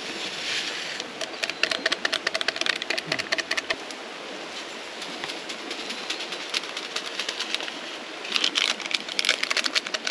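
A metal spoon clinking rapidly against a cup while stirring instant coffee, in two bouts of quick irregular clinks with a pause between them.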